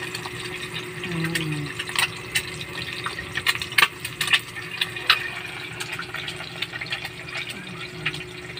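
Eggs frying in hot oil in a stainless steel pan: a steady sizzle with frequent sharp pops and crackles.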